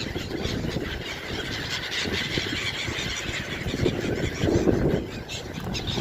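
A flock of seagulls calling over one another in short, squealing cries as they compete for thrown bread.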